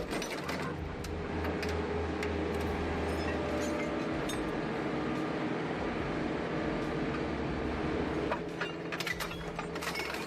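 Heavy industrial shredding machinery running with a steady low rumble and grinding noise. From about eight seconds in, dense metallic clanks and crunches join it.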